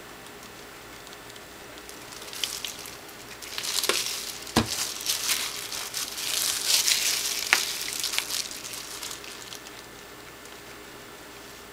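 Plastic crinkling and rustling as a disposable plastic glove and the plastic wrap covering the work surface are handled. It comes in uneven bursts that start about two seconds in, are busiest in the middle and die away near the end, with a sharp tap about four and a half seconds in and a lighter one a few seconds later.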